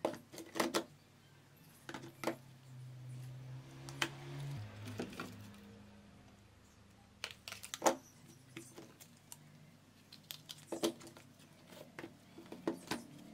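Plastic cases of old mobile phones clicking and clacking as they are picked up from a pile, handled and knocked against one another: scattered sharp taps, some in quick pairs.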